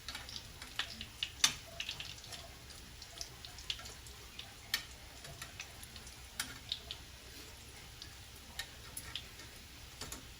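Fish fritters frying in a pan of hot oil: a faint steady hiss with irregular pops and crackles, the loudest about one and a half seconds in.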